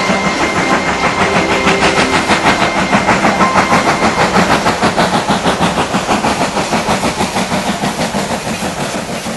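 Steam locomotive chuffing at a steady fast beat, about five chuffs a second, fading out near the end.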